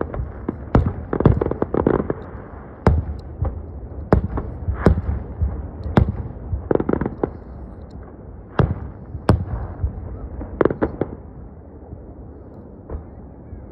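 Aerial fireworks shells bursting in a string of sharp bangs over a low rumble. The bangs come close together at first, then fall to single reports about a second apart and die away near the end.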